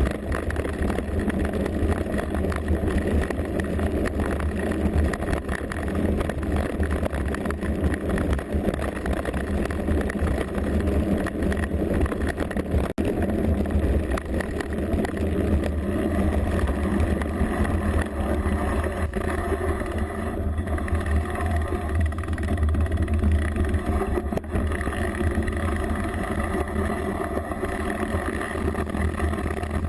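Mountain bike descending a rough trail, heard through a rear-mounted GoPro: steady low wind rumble on the microphone, with constant rattling and clicking from the bike over stones. The sound drops out briefly about 13 seconds in.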